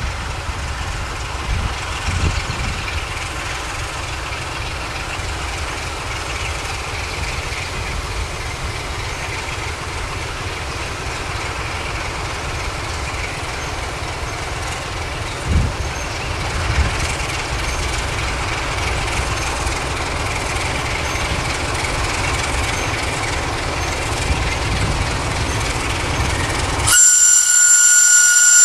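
Romanian Electroputere LDE 2100 (class 060-DA) diesel-electric locomotive with its Sulzer diesel running, rolling slowly as it shunts a heavy coal train, with a steady low rumble, faint wheel squeal and one knock about halfway. Near the end comes a loud horn blast of about two seconds.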